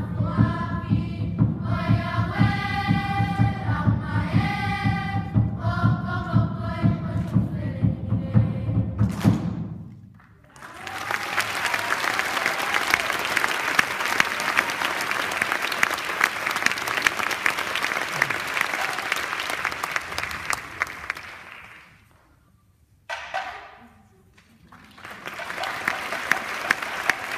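A group of voices singing with musical accompaniment, the song ending about nine seconds in; then an audience applauding, the clapping dying away around twenty seconds in, a brief voice, and clapping starting up again near the end.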